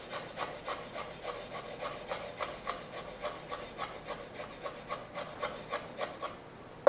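Chef's knife mincing pickled jalapeños on a wooden cutting board: an even run of quick blade taps on the board, about four a second, stopping just before the end.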